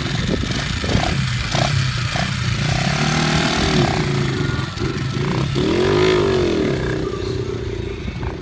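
The 49cc single-cylinder four-stroke engine of a 1970 Honda Z50 Mini Trail running as the bike is ridden. It revs up and back down once about six seconds in.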